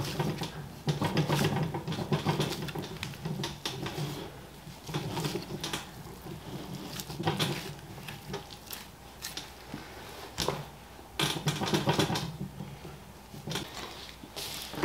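Boning knife slicing and scraping through fat on a boneless beef chuck, with irregular light clicks and scrapes as the blade and hands work the meat on a plastic cutting board.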